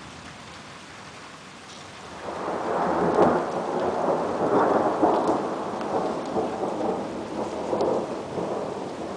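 Steady rain hiss; about two seconds in, a long roll of thunder swells up, is loudest a second later, and rumbles on, slowly fading.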